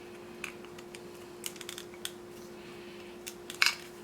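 Irregular light clicks and taps of small model-kit parts and a screwdriver being handled, with a louder cluster of clicks about three and a half seconds in, over a faint steady hum.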